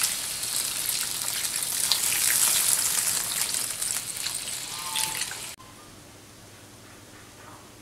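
Water pouring and splashing from a plastic jug into a hot wok of frying mantis shrimp, a steady gushing hiss with small crackles. It cuts off suddenly about five and a half seconds in, leaving only a faint steady hum.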